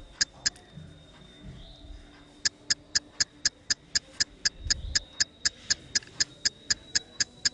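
Quick, even clock-like ticking, about five ticks a second. It breaks off shortly after the start and picks up again about two and a half seconds in.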